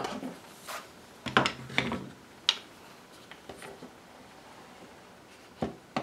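DeWalt one-handed trigger bar clamp being picked up and fitted around pine boards: a few quiet knocks and clicks of plastic and metal on wood, the sharpest about two and a half seconds in.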